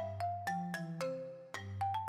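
Background music: a light, bouncy melody of short, bright ringing notes over a steady bass line.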